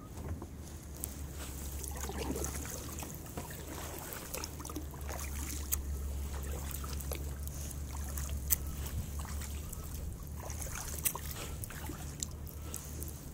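Kayak paddling: the paddle blades dipping and water trickling off them, with scattered sharp drips and light knocks over a steady low rumble.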